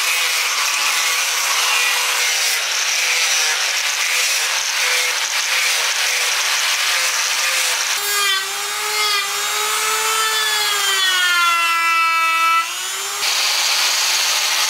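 Angle grinder with an abrasive disc grinding cedar wood: a steady rasping noise over the motor's whine. About eight seconds in the whine grows stronger and its pitch sags and then rises again as the disc is worked against the wood.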